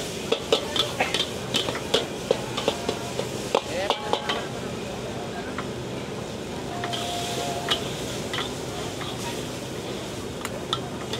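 Metal spatula and ladle clanking and scraping against a large steel wok as kuey teow noodles are stir-fried, over a steady sizzle. The clanks come rapidly in the first four seconds or so, then thin out to occasional strikes.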